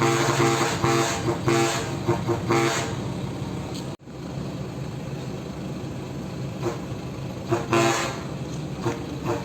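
Musical vehicle horn tooting a quick, rhythmic run of notes. About four seconds in it cuts off suddenly, and steadier vehicle noise follows, with a few more short horn toots near the end.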